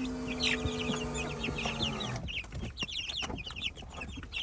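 Chickens clucking with many short, quick calls, over a steady low hum that stops about two seconds in.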